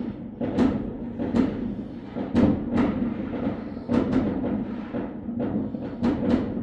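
Fireworks going off: about ten sharp bangs at irregular intervals, some in quick pairs, over a continuous low din.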